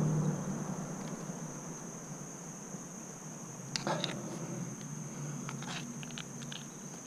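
Steady high-pitched drone of insects, with a few light metallic clinks of climbing gear (carabiners and quickdraw) about four seconds in and again near the end. A low rumble fades out over the first second.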